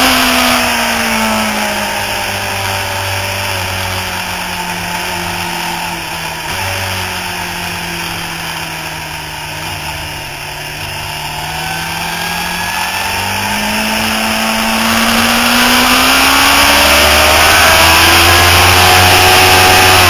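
Sport motorcycle's engine heard from an onboard camera with steady wind noise. The engine note falls for about ten seconds as the bike slows into and through a long corner, with a brief break about six seconds in. It then rises steadily as the bike accelerates out.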